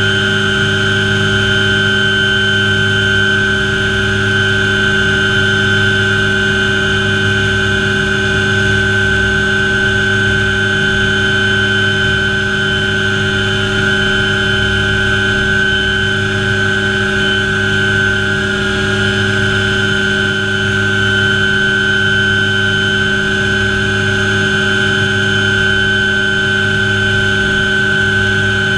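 MD500 helicopter's turbine engine and main rotor running steadily at ground idle, heard from inside the cockpit: a constant high whine over a low, gently pulsing rotor drone.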